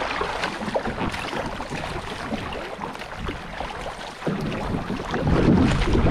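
River water splashing and paddle strokes around a descent racing boat, with wind rumbling on the microphone that grows heavier from about four seconds in.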